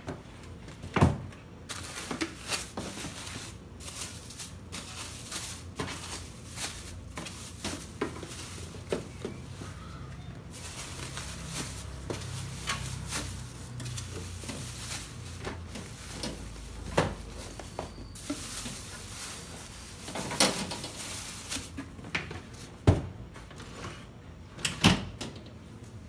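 Plastic freezer drawers of a bottom-freezer refrigerator sliding and knocking, with scattered clicks and bumps as bags of meat are shifted and packed in. A few sharper knocks stand out about a second in and several times in the second half.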